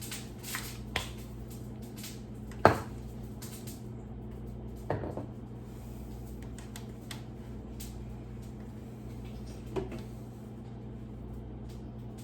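Scattered knocks and clatters of containers and fridge parts being handled and set down during a refrigerator clean-out, the sharpest knock about a quarter of the way in, over a steady low hum.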